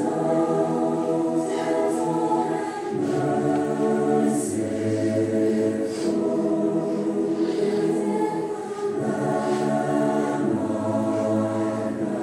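A choir singing a slow song in held chords that change every second or two, with the sung words' s-sounds showing now and then.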